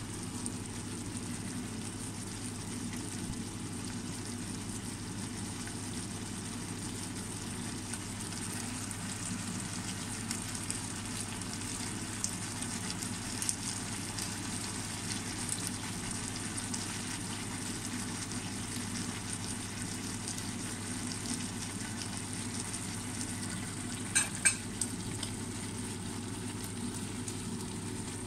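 Dried fish with tomatoes and onions sizzling in oil in a pan, a steady crackling hiss. Two sharp clicks sound about three-quarters of the way through.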